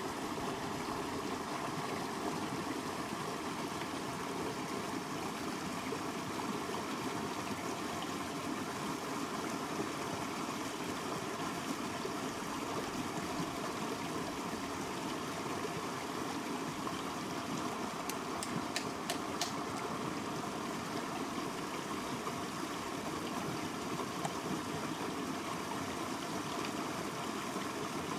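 Steady rushing of a small river cascade spilling over rocks. A little under two-thirds of the way through comes a quick run of about five sharp clicks.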